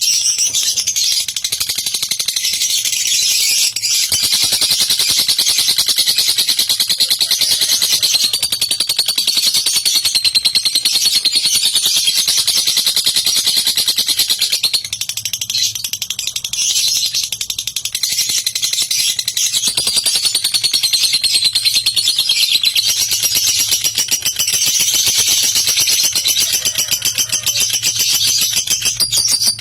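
Lovebird ngekek: a long, fast, high-pitched chattering trill that runs on almost without stop, with a few short breaks.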